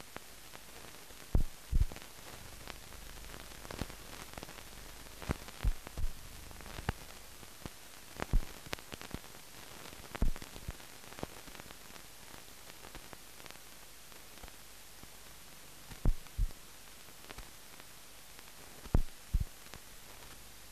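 Steady hiss from a silent film's blank soundtrack, broken by scattered sharp clicks and loud low thumps, several of them in close pairs.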